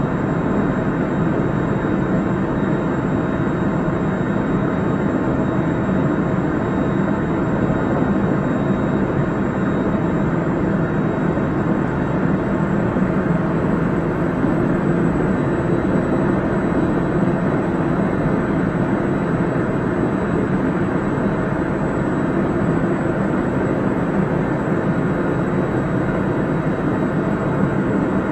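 Running noise heard from inside a JR Central 373 series electric multiple unit (set F2) travelling at a steady pace: a continuous rumble of wheels and track with a faint, steady high whine over it.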